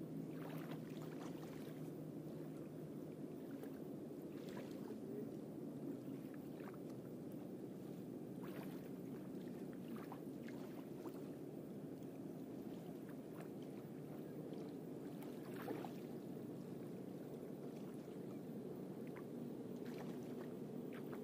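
Faint, steady low hum of a distant boat motor out on the river, with a few soft clicks scattered through it.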